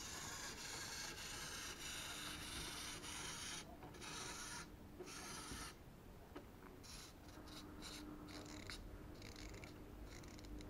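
The small clockwork wind-up motor of a plastic 3D-puzzle panda toy whirring as its gears run. It runs steadily for about three and a half seconds, then goes in shorter stop-start runs.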